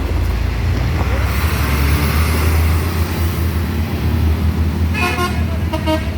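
A bus's low engine rumble with a swelling hiss, then short blasts of a basuri multi-tone telolet horn, two quick bursts about five and six seconds in.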